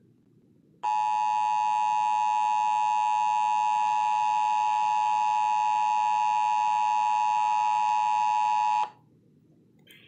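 Emergency Alert System attention signal: the two-tone 853 and 960 Hz alert tone, heard through a TV's speaker. It starts about a second in, holds perfectly steady for about eight seconds, and cuts off sharply.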